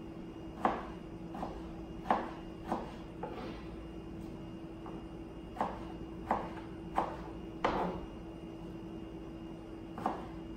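Kitchen knife slicing eggplant on a plastic cutting board: about ten sharp, irregular knocks as the blade goes through and hits the board, with a pause of about two seconds near the end.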